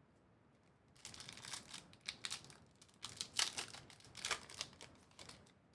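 A trading-card pack wrapper crinkling and tearing as it is ripped open and the cards are pulled out: after a quiet first second, about four seconds of irregular crackling, loudest near the middle.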